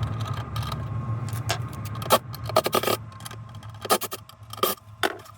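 Scattered sharp clicks, knocks and scrapes of hand tools and hardware being handled at a wall outlet box, over a steady low hum that stops near the end.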